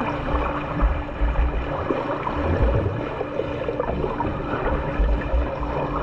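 Water splashing and churning from a swimmer doing freestyle in a pool, with irregular low thumps and a faint steady hum.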